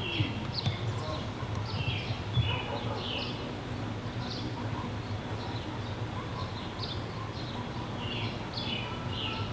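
Birds chirping over and over in short calls, over a steady low hum and rumble from the camcorder.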